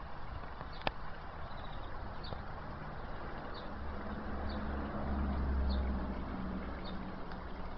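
Outdoor garden ambience: a steady hiss, with a bird's short high chirp repeating about once a second. A single click comes about a second in, and a low rumble swells and fades about four to six seconds in.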